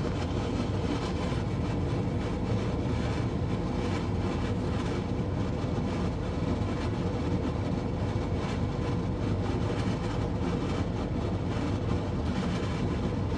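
12V under-bunk air conditioner running on high at full load, drawing about 650 watts: a steady mechanical hum with the rush of its fan blowing air.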